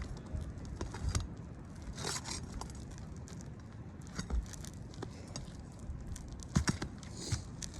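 Asphalt roof shingles being lifted and pried loose by hand: scattered scrapes, crackles and sharp clicks, with louder knocks about a second in, near four seconds and around six and a half seconds.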